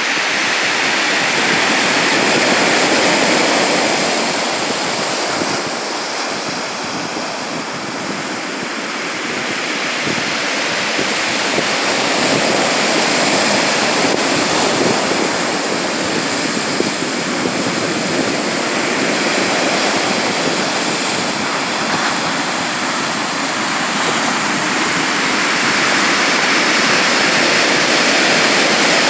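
Sea surf: a continuous rush of waves washing in, swelling louder and easing off again every several seconds.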